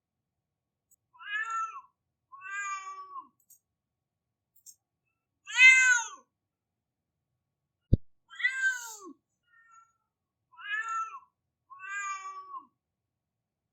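Domestic cat crying, six drawn-out meows with silent gaps between them, the third the loudest. A single sharp click falls about eight seconds in.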